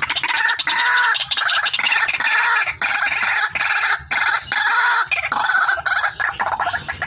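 White-breasted waterhen (ruak-ruak) calling: a loud, continuous run of rapid, harsh repeated notes with a few short breaks. It is a recording of the female's call, used as a lure for trapping the bird.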